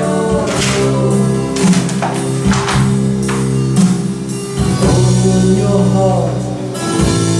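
Background music: held low chords with a voice over them and a percussive stroke about once a second.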